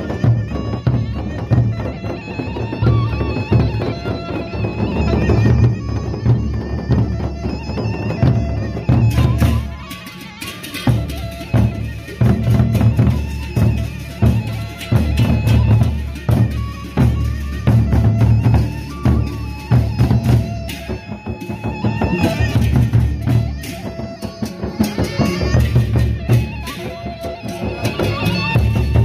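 Sasak gendang beleq ensemble playing on the move: large double-headed barrel drums beaten in a dense, driving rhythm with clashing hand cymbals and gongs. The music eases off briefly twice before picking up again.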